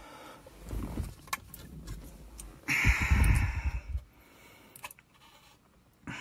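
Handling noise from interior car trim being refitted: light knocks and rustling, with a louder scraping noise about three seconds in that lasts around a second.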